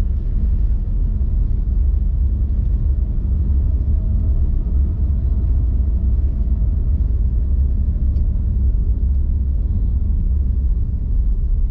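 Steady low rumble of a car on the move, heard from inside the cabin: engine and tyre noise without change.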